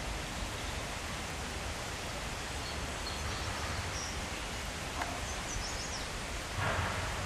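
Steady wind noise with rustling leaves. A few faint, short, high bird chirps come in the middle, and a brief louder rustle comes near the end.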